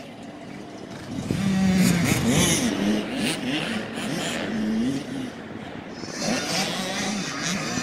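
Dirt bike engine revving up and down as it is ridden around a motocross track, the pitch rising and falling with each throttle change, loudest about two seconds in.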